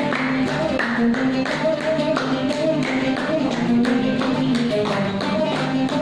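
Music: a held melody that steps from note to note, over a steady beat of short hand-percussion strokes.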